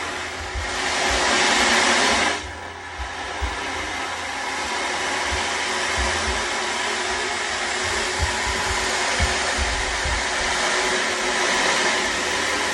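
Ocean drum: beads rolling across the drumhead in a surf-like rush, swelling loudest about half a second in, cutting off sharply after two seconds, then building again. Beneath it a sound bowl rings with steady tones, and irregular low thumps come from kids running upstairs.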